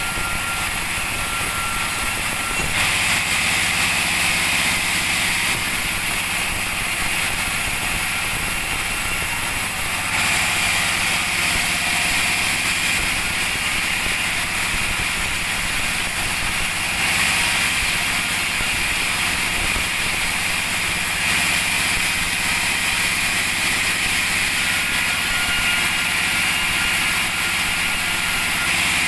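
Band sawmill running steadily: a low machine hum under a higher hiss that grows louder and eases off every few seconds.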